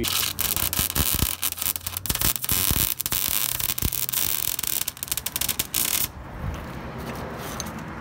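Wire-feed welder's arc crackling in a steady run with brief breaks as a steel angle is welded on. It stops about six seconds in, leaving a quieter steady background noise.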